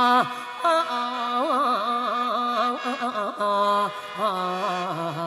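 Khaen (Lao/Isan bamboo free-reed mouth organ) playing an ornamented melody over a steady held drone note.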